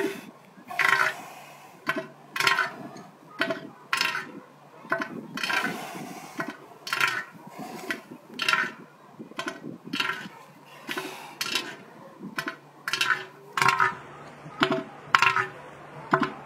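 Bull elephant seal giving its threat call: a steady train of loud, rasping pulses, a little more than one a second. It is the display that a breeding male uses to warn off rival bulls.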